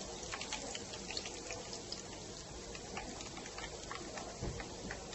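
Shallow frying oil sizzling softly with scattered small crackles around a breadcrumb-coated pork chop as it is lifted out of the pan, done frying.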